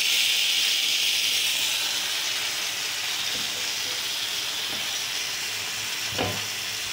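Pre-boiled, spice-coated chicken pieces sizzling in oil on a flat pan, a steady high hiss that eases off slightly. There is a brief knock near the end as a fork moves the chicken.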